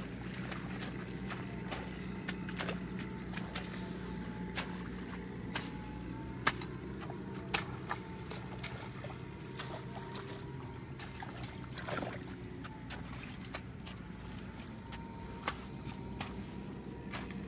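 Water splashing and trickling in shallow floodwater, with sharp irregular clicks and splashes over a steady low hum.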